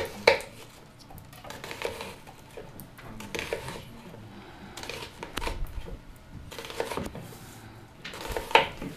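Kitchen knife cutting a red onion on a wooden cutting board: irregular knocks of the blade against the board, with some clatter of dishes and utensils.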